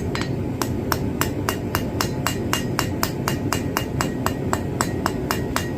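Blacksmith's hammer striking a hot iron bar on an anvil in quick, even blows, about five a second, forging the bar's end out round. Each blow gives a short metallic ring, over a steady low rushing noise.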